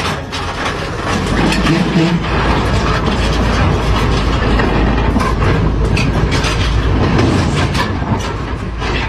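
SANY SY485H crawler excavator running and moving on a trailer, its steel tracks and undercarriage clanking and knocking over the engine noise in a loud, continuous racket.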